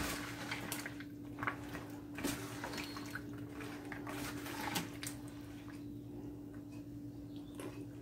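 Sliced cucumbers and onions being stirred in a sugar-vinegar brine with a spatula in a plastic bowl: wet squishing and sloshing, with light clicks and scrapes of the spatula against the bowl, most of them in the first half. A faint steady hum runs underneath.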